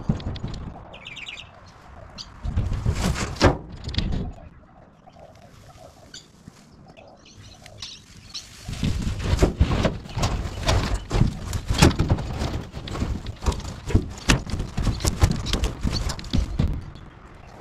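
Leafy pruned tree branches rustling and crackling as armfuls are dumped and shoved into a trailer: a short burst about two and a half seconds in, then a longer run of rustling and knocks from about nine seconds in. A bird chirps briefly near the start.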